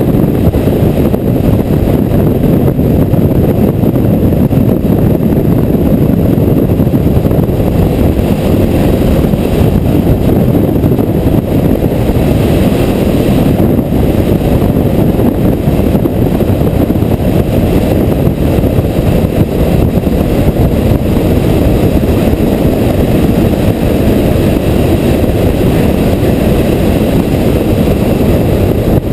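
Steady road noise of a motorcycle cruising at speed, heard from the bike itself: a low, even rush of wind and engine that does not change.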